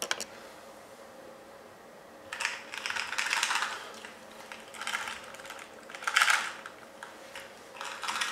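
Cardboard Bicycle playing-card box being handled, opened and closed in the hands: four short bursts of rustling and clicking.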